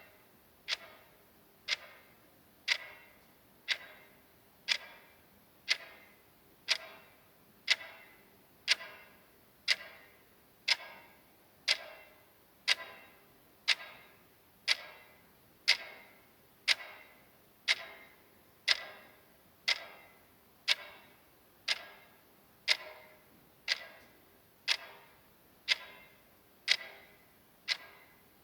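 Clock ticking sound effect: soft, even ticks, one per second, each with a short fading ring.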